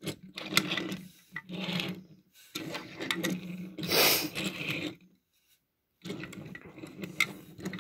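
Rubbing and scraping handling noise from a hand brushing right against the camera while diecast toy cars are shifted about on a wooden table. It comes in four stretches with a short silent gap about five seconds in.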